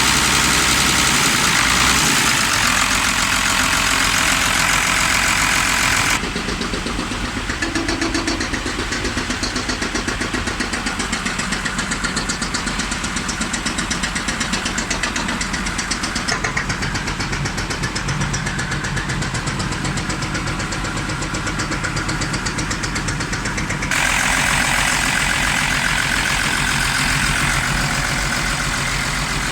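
IVECO truck's diesel engine idling steadily.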